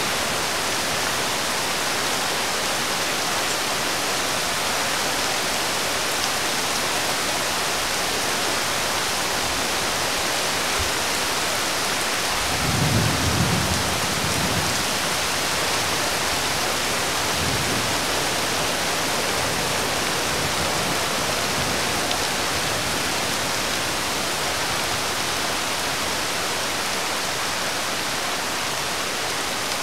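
Steady rain hissing on the road and roofs. About halfway through, a low rumble swells for a couple of seconds and then fades.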